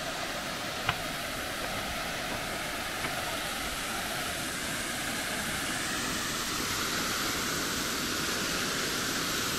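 Small waterfall cascading over rocks into a stream: a steady hiss of rushing water that grows slightly louder in the second half. One small click about a second in.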